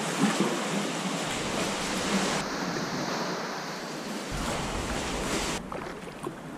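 Sea water washing around a sea kayak, a steady rush of water noise that shifts abruptly a few times.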